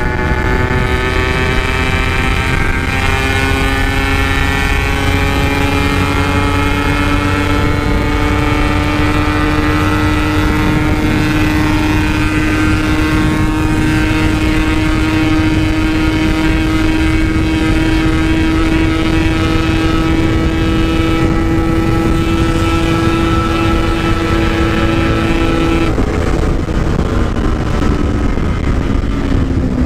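Yamaha RX-King's 135 cc single-cylinder two-stroke engine running at a steady cruise through its aftermarket 'standart belek' exhaust, its pitch sagging slowly. About 26 seconds in the tone drops lower as the throttle eases off.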